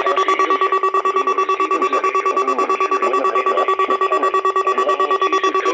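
Rapid, evenly pulsing electronic beeping over a steady alert tone, from an emergency alert system weekly test broadcast on weather radio.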